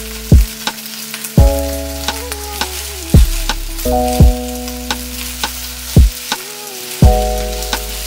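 Background music with a steady beat: held synth chords changing every second or so, deep kick drums and sharp ticks. Underneath it, fried rice sizzles in a hot pan.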